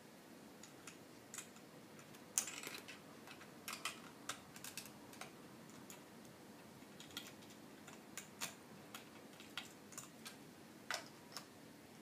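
Plastic Lego bricks clicking and clattering as they are handled and pressed onto a model: faint, irregular clicks, with the loudest cluster about two and a half seconds in.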